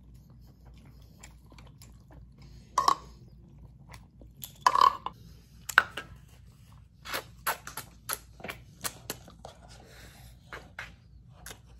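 A person eating close to the microphone: chewing and wet mouth clicks, with the clicks coming thick and fast in the second half.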